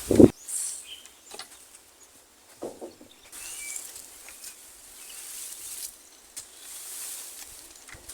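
Birds calling outdoors, with scattered short chirps and whistles over a high hiss that swells and fades. A low thump is the loudest sound, right at the start, and a softer one comes about two and a half seconds in.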